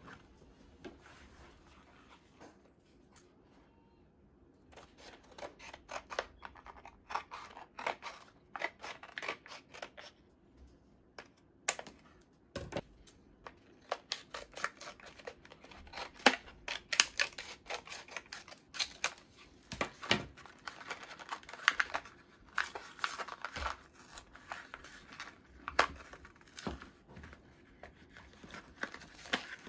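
Scissors cutting through a blister pack's cardboard backing and plastic shell, a long irregular run of sharp snips and crinkles starting about five seconds in. Near the end the card is pulled and torn apart from the plastic blister.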